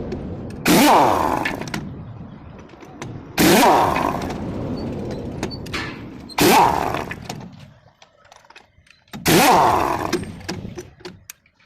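A machine motor run in four bursts, each starting abruptly and dying away over a second or two with its pitch sliding.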